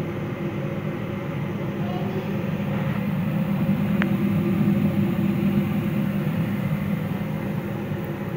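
Donuts shallow-frying in hot oil in a frying pan: steady sizzling and bubbling, under a steady low rumble.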